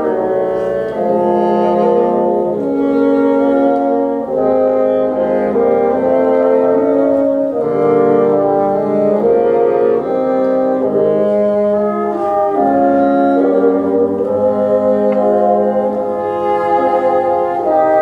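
A bassoon ensemble playing in harmony: several sustained notes at once, the chords moving from one to the next about every second.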